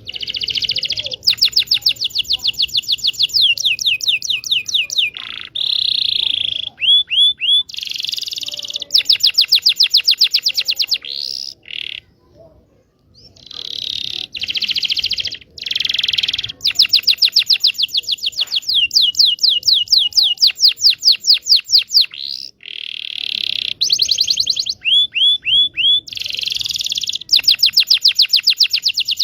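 Domestic canary singing a long song of fast trills: runs of quickly repeated notes at changing speeds, with a couple of brief pauses. It is a lure song for coaxing silent canaries, and young ones still learning, to sing.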